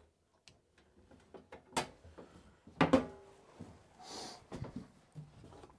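A few sharp knocks and clicks, two louder ones about two and three seconds in, and a short hiss about four seconds in.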